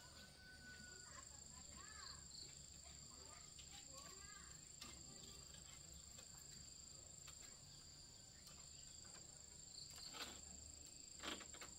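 Faint, steady high-pitched insect drone, with a few soft chirps and a couple of sharp knocks near the end.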